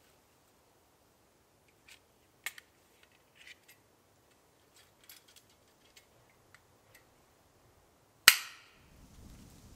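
Agawa Canyon Boreal21 folding bow saw being unfolded: a few light clicks and rattles, then one sharp, loud metallic snap with a brief ring near the end as the frame locks the blade taut. The first rasping strokes of the saw on wood start right after.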